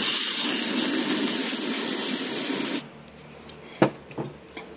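CRC aerosol spray hissing in one continuous blast of nearly three seconds, cutting off suddenly, as it washes out a motorized bike engine's crankshaft seal housing. A sharp click follows about a second later.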